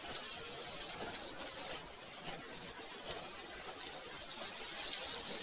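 Butter and oil sizzling steadily in a hot kadhai as the butter melts.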